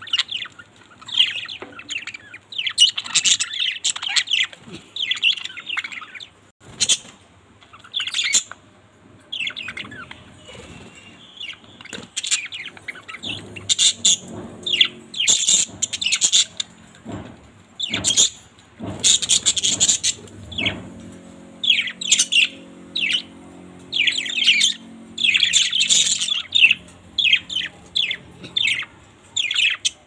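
Budgerigars chirping and chattering in quick clusters of short, high chirps with brief pauses between them. A faint steady low hum sits under the chirps in the second half.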